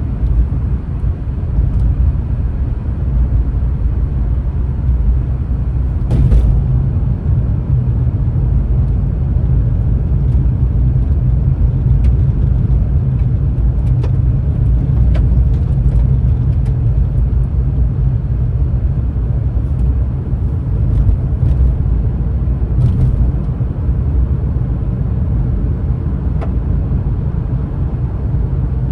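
Steady low rumble of a vehicle driving in slow traffic, engine and road noise together, with a few faint ticks here and there.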